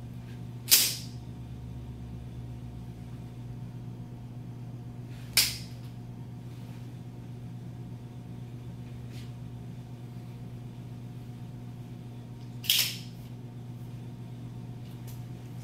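Expandable steel baton: three sharp metallic clacks over a steady room hum. The first comes about a second in as the baton is snapped open, a second comes about five seconds in, and the last comes near the end as the baton is collapsed.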